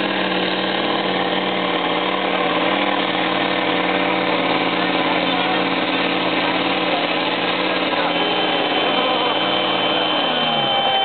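Mercedes truck's V10 diesel engine running hard under load as it pulls a weight sled, holding a steady pitch, with the revs falling away about ten and a half seconds in. A thin, steady high tone joins about eight seconds in.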